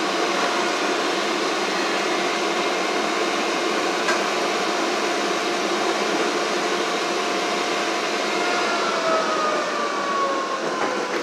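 Inside a CTA 3200-series rail car moving off from a station: steady running noise under a motor whine, which drops in pitch about eight and a half seconds in. A single light click sounds about four seconds in.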